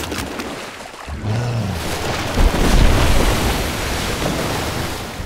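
Film sound effects of a heavy crash into water: a deep booming hit about two and a half seconds in, followed by a long rush of splashing water and spray.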